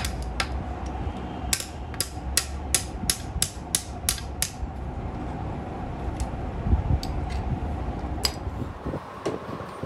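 Small hammer striking the metal fittings of a Fiat 640 tractor clutch pressure-plate assembly: a quick run of about nine sharp blows, about three a second, then a couple of scattered taps later on. A steady low hum runs underneath.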